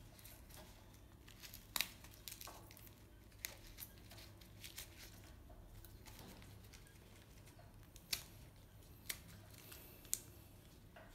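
A baby macaque biting and chewing lotus seeds: faint, sharp crunching clicks that come irregularly, a dozen or so, over a low steady hum.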